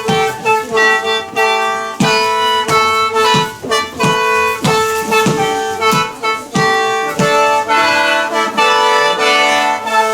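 Upbeat instrumental music with a steady beat of about two notes a second and a held note sounding under the melody.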